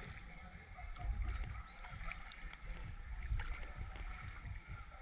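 A paddle dipping and pulling through water beside a small canoe, with soft water sounds and an uneven low rumble underneath.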